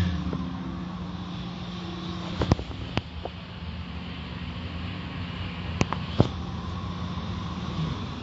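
Automatic car wash heard from inside the car: a steady machine drone with water and spinning brushes washing over the body and windshield, and a few sharp knocks as the brushes strike the car.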